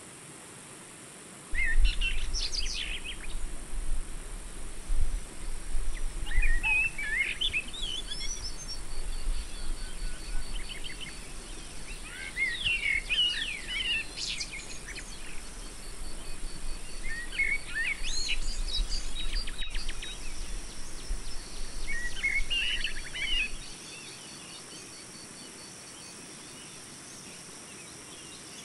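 Birds chirping in short twittering bursts every few seconds, with a faint rapid high trill underneath. A low rumble comes in suddenly about two seconds in and cuts off suddenly near the end, and is the loudest sound.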